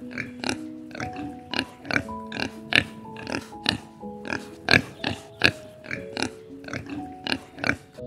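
Piglets grunting in a quick run of short grunts, about two or three a second, over background music of held notes.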